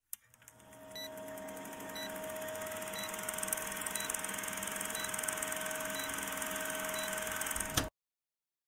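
Vintage film-countdown sound effect: a steady film-projector whir and hiss with a short high beep once a second, cutting off suddenly near the end.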